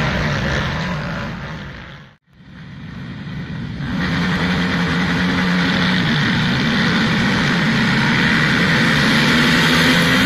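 Many racing ATV (quad) engines running together. The sound fades out to silence about two seconds in, then comes back about four seconds in as a louder, steady sound of a whole pack of quads revving.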